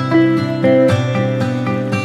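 Instrumental music played on acoustic guitar, with new notes sounding every half second or so.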